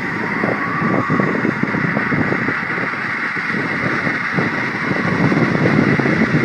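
Strong wind blowing, a loud, steady rushing noise without pauses.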